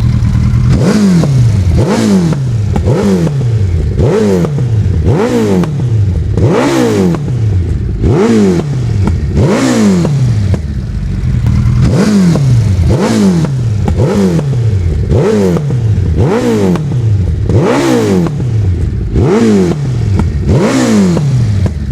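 Suzuki Hayabusa's inline-four engine revved hard in repeated throttle blips, about one a second, each climbing quickly and falling back toward idle, with exhaust pops from its single silencer as the revs drop.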